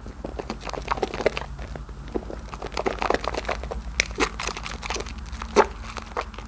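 Soap being lathered in thick soapy foam: a dense, irregular run of small wet crackles and squelches from the lather.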